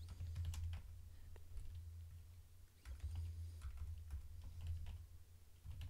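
Typing on a computer keyboard: irregular keystroke clicks coming in small clusters, over a steady low hum.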